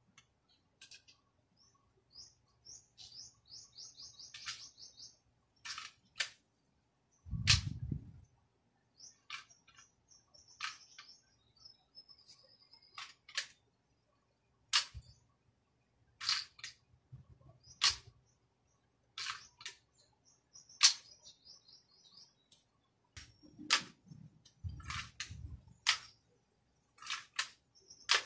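Sharp plastic clicks, about twenty spread out one at a time, from the mechanism of a hand-held LEGO brick pistol being worked by hand, with a few dull handling thumps. Short, rapid, high chattering runs come in between the clicks.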